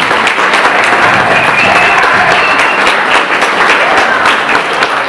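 Congregation applauding loudly, dense clapping from many hands, with voices mixed in.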